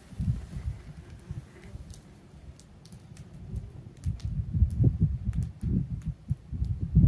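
Footsteps crunching and thudding on icy, snow-dusted pavement, growing heavier and more regular from about four seconds in.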